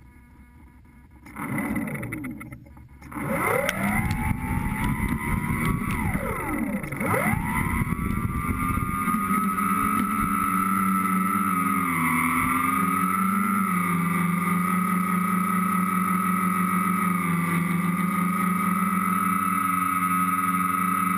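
Tricopter's electric motors and propellers spinning up. A short burst comes about a second in, then a brief drop, then a stronger start whose pitch swoops down and up a few times as the throttle changes. From about nine seconds in it settles into a steady high whine with small wavers in pitch.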